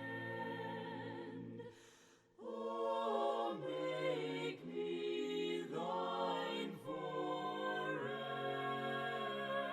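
A choir singing a hymn a cappella in slow, held chords, with a short break between phrases about two seconds in.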